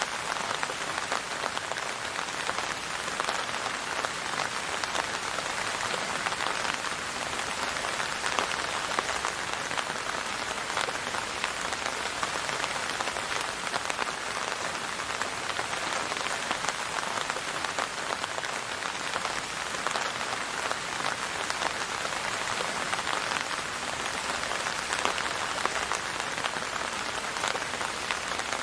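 Steady rain falling and pattering on a surface, a dense even hiss of many fine drop hits with no let-up.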